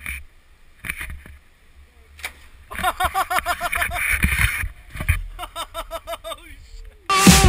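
A person whooping repeatedly while swinging on a rope swing beneath a viaduct, a quick run of rising-and-falling yells about four a second that fades after a few seconds. Wind rumbles on the microphone throughout.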